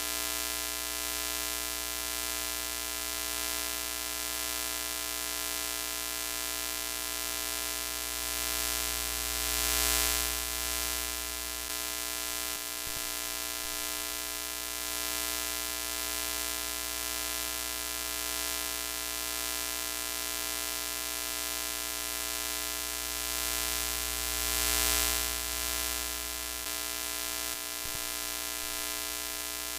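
Broken-TV sound effect: a steady hiss of static over a buzzing electrical hum, swelling louder briefly about ten seconds in and again about twenty-five seconds in.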